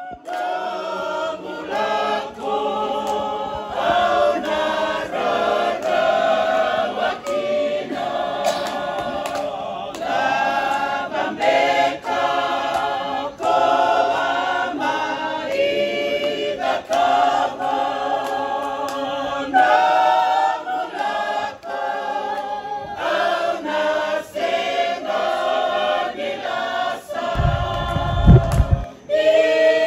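Background music: a choir singing, with no instruments standing out. A brief low rumble near the end.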